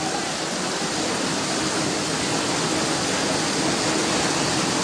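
Steady, unbroken rush of torrential typhoon rain and fast-flowing floodwater surging down the street.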